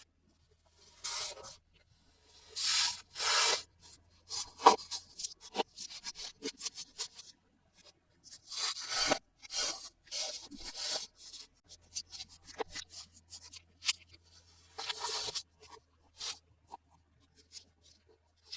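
Hands handling toy packaging during an unboxing: a series of short rubbing, scraping and tearing strokes with scattered sharp clicks and ticks in between.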